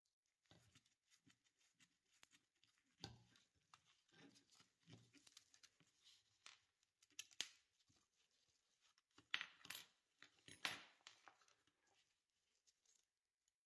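Quiet clicks and metallic clinks of small rusty screws and brass brackets from an antique toaster's heating element being unscrewed, handled and set down on a hard surface, with a few sharper clinks about two-thirds of the way through.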